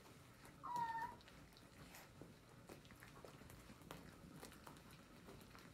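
English Springer Spaniel puppies eating their first meal together: faint, scattered smacking and lapping clicks, with one short, high squeak from a puppy about a second in.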